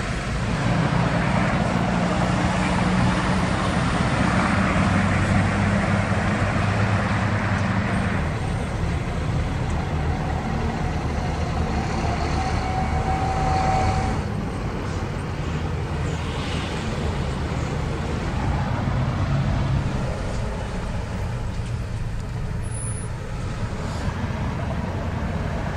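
Road traffic passing close by: trucks and pickups towing trailers, with engines running and tyre noise on the road. The sound changes abruptly about eight and fourteen seconds in.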